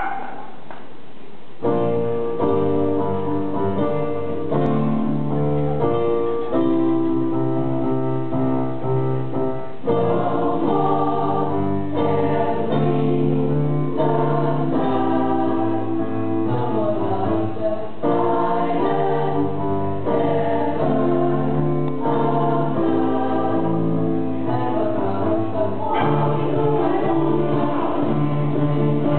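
A choir of mostly women's voices singing, accompanied by acoustic guitars and keyboard. The full choir and band come in about a second and a half in, after a quieter opening.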